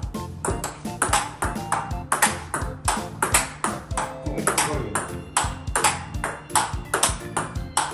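Large-ball table tennis rally: the ball clicks sharply off rubber-faced rackets, one faced with DONIC L-Meister 44, and bounces off the table, several hits a second. Background music plays underneath.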